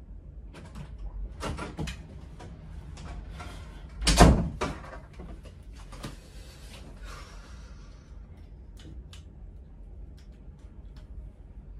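Knocks, clicks and rustles of someone moving about a small room and handling things. One loud, heavy thump comes about four seconds in, and only a few faint ticks follow in the last seconds.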